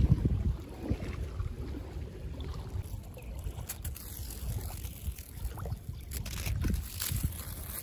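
Wind rumbling on the microphone over lapping shallow water, with a few faint ticks.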